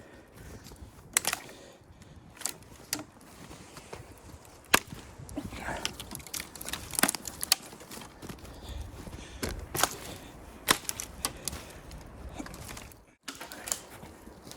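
Irregular sharp clicks and knocks, a dozen or so, spaced unevenly over a faint low rumble.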